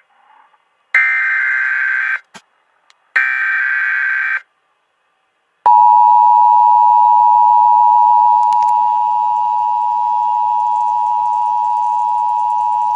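Emergency Alert System test tones. First come the last two of the three SAME header data bursts, each about a second of harsh digital warbling. After a short pause, the steady two-tone EAS attention signal begins about six seconds in and keeps sounding.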